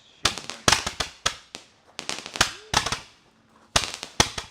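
A 70-shot consumer fireworks cake firing: an irregular rapid series of sharp bangs, each dying away, in quick clusters with a short lull about three seconds in before a few more shots.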